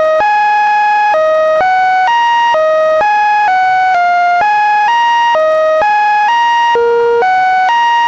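Synthesized electronic tones made from Linux kernel data, one steady buzzy note after another. The pitch jumps up or down about twice a second, giving an aimless, tuneless melody with no pauses.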